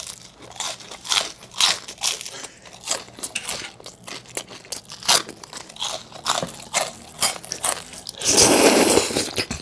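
Close-miked crunching and chewing of crisp deep-fried battered food (Korean twigim), with many sharp bites. About eight seconds in there is a loud slurp lasting about a second as thin, noodle-like tteokbokki rice cakes are sucked in.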